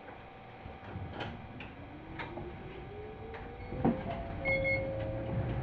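Toyama Chiho Railway 17480-series electric train pulling away: the motor whine rises steadily in pitch for about three seconds as it accelerates, then levels off. Sharp clicks from the wheels and track come through over a low, growing rumble, the loudest about four seconds in.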